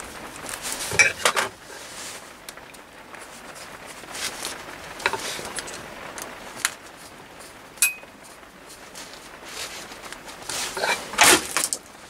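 Small metallic clicks and clinks as 4 mm screws are turned with a hex key to fix a brass push-button bracket onto a worm-drive gearbox motor, one of them a sharp ringing click. The loudest clatter comes near the end as the motor is set down on the metal bench.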